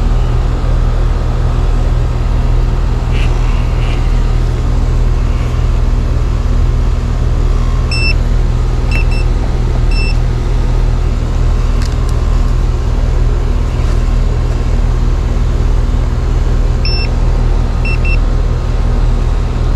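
Residential air conditioning system running, a loud steady low hum, with short electronic beeps, singly and in pairs, at about 8, 9 and 10 seconds and again near 17 and 18 seconds.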